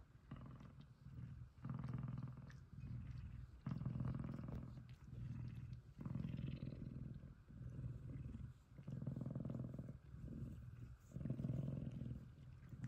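F2 Savannah cat purring loudly up close: a deep, low purr that swells and fades with each breath, about once a second.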